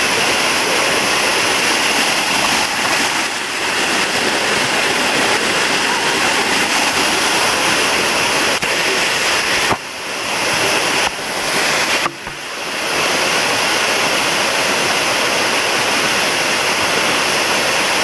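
Waterfall pouring over rock close by: a steady, loud rush of falling water, dipping briefly twice about ten and twelve seconds in.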